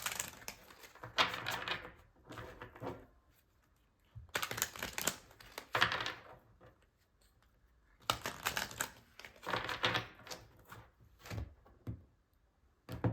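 Tarot cards being shuffled by hand, a fast patter of card edges clicking and slapping in three bursts separated by short pauses.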